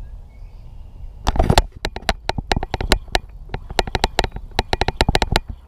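A fishing reel clicking in rapid, irregular sharp clicks as a hooked bowfin is played on a rod. The clicks start about a second in, just after a brief louder rustle.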